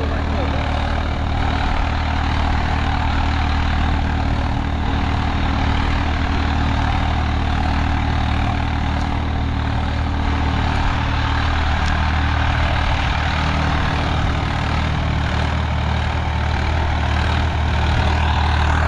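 Swaraj 855 FE tractor's three-cylinder diesel engine running steadily during a round of field work, with an even, unchanging engine note.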